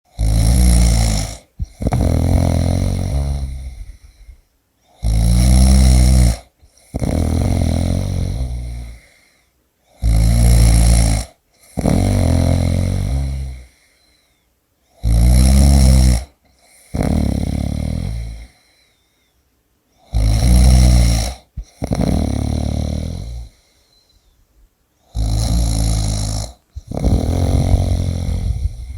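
A person snoring in deep sleep, about six breaths roughly five seconds apart. Each breath is a short, loud rattling snore followed by a longer one that fades away before a brief pause.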